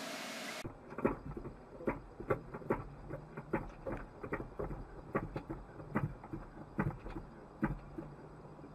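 A steady hiss cuts off about half a second in. Then come knocks and clicks carried through the body of a parked Toyota Prius as it is jacked up from the right side, irregular, about one a second with lighter ones between, over a faint low hum.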